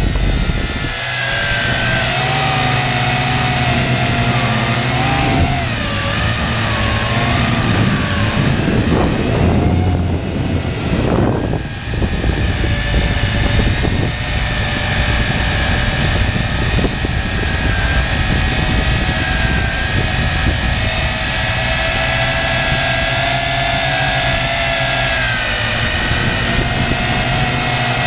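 A drone's motors and propellers whining, recorded on board close to the spinning blades: several high tones that waver up and down as the motors speed up and slow down, with a short dip about eleven seconds in.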